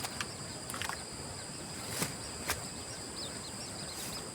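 Steady, high-pitched chorus of insects such as crickets, holding two shrill tones, with a few sharp clicks (the loudest about two seconds in) and faint short chirps in the second half.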